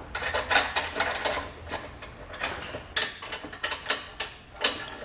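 Steel safety cable and quick link clinking together in the hands as the quick link is hooked onto the tow base plate and its nut is twisted shut. Irregular light metal clicks and rattles.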